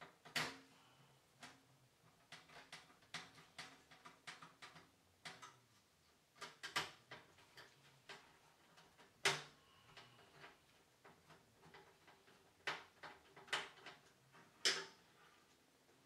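Scattered clicks, taps and knocks of a screwdriver and parts against a metal computer case as components are fitted inside it, irregular, with two louder knocks about nine seconds in and near the end.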